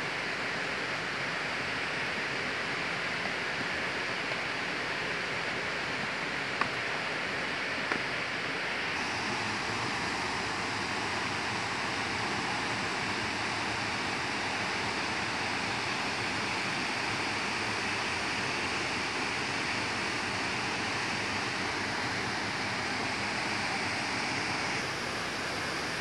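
Steady rushing noise of a tall cascading waterfall, an even hiss with no breaks. Its tone shifts slightly about a third of the way in, and two small clicks come shortly before that.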